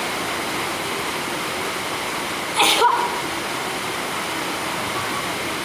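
One short sneeze a little before halfway through, a sudden burst of breath and voice, over a steady background hiss.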